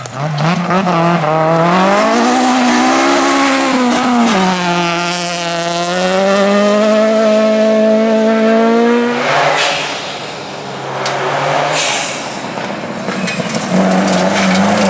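Classic rally car engine running hard, its pitch climbing under throttle and dropping with gear changes, with a sharp drop about four seconds in. The clear engine note breaks off about nine seconds in into a rougher, noisier stretch, and a revving engine note comes back near the end.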